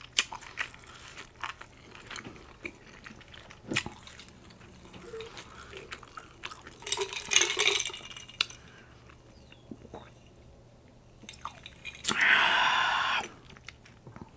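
Close-miked mouth sounds: soft wet clicks of chewing, then a drink sipped through a plastic straw about seven seconds in. Near the end comes a louder slurp through the straw lasting about a second.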